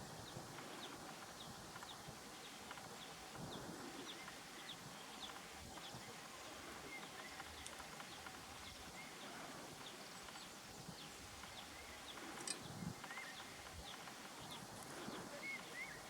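Faint outdoor bird chorus: many short, scattered high chirps and a few brief whistles from small birds over a quiet background hiss. A couple of low, dull bumps sound, the loudest a sharp knock about three-quarters of the way through.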